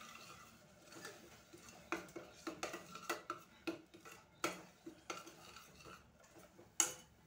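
Steel spoon stirring thick gravy in a pressure cooker pot, with irregular clinks, taps and scrapes against the metal sides and a louder knock near the end.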